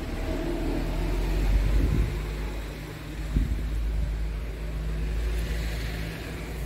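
Scania R450's six-cylinder diesel engine idling steadily, with two dull knocks about two and three and a half seconds in.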